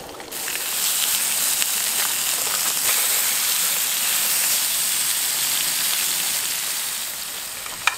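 Skin-on salmon fillets frying in oil in a pan on a canister camp stove: a steady sizzling hiss with a few small pops, easing slightly near the end.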